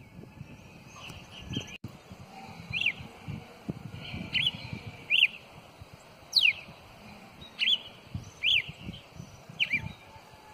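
Caged male campina songbird singing a series of short, sharp chirping notes, about one a second, several of them sweeping steeply down in pitch.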